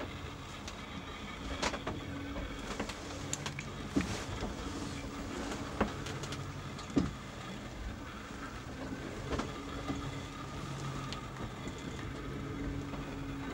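Steady mechanical hum inside the cabin of a wooden sailing lugger, most likely the boat's engine running, with a scattering of sharp knocks.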